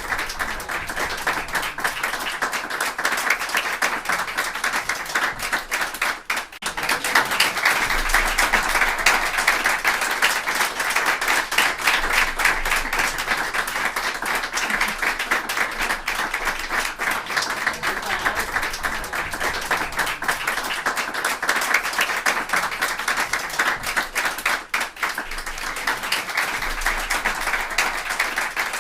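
A group of people applauding: dense, steady clapping from many hands, with two brief dips, about six seconds in and near the end.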